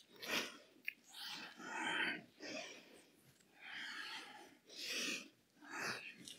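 A woman breathing hard from exertion: a quick run of about half a dozen audible inhales and exhales.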